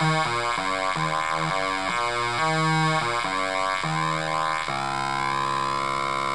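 Home-built Atari Punk Console, a 555-timer square-wave noise synth, buzzing as its knobs are turned. The pitch jumps in steps a few times a second, then settles about two-thirds through into one steady drone with thin sweeping overtones.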